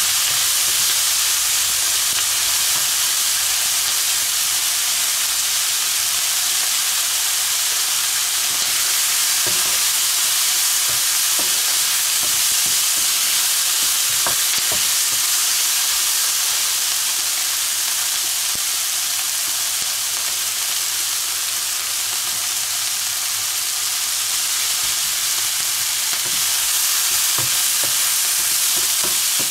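Diced onions and garlic sizzling in hot oil in a wok, being sweated until glassy, with a steady high hiss. A wooden spatula stirs them, with a few faint knocks and scrapes against the pan.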